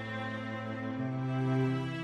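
Background music: slow, tender instrumental with sustained string-like chords and a low bass line changing note about a second in.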